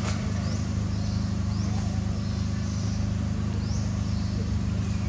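A steady low drone like a nearby running engine, with short rising chirps from a small bird high above it every second or so.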